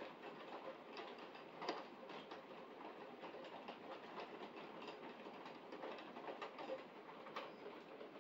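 Rain falling on a window during a thunderstorm: a steady hiss with scattered sharp ticks of drops striking the glass.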